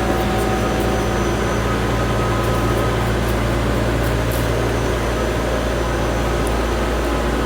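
Steady mechanical drone of machinery, a low hum with several fixed tones under an even noise, unchanging throughout.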